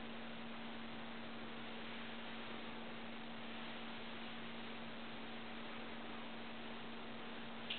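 Steady background hiss with a constant low hum, and a faint click at the very end.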